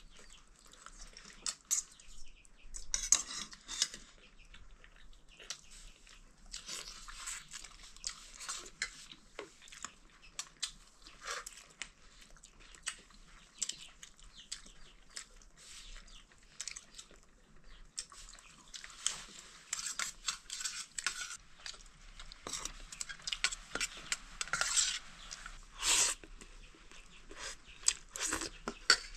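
A meal being eaten: a spoon scraping and clinking on a plate, with chewing of curry and rice, in irregular bursts.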